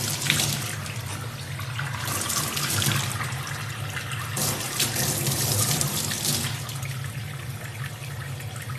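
Running water, a steady rushing noise that swells a little now and then, over a low steady hum.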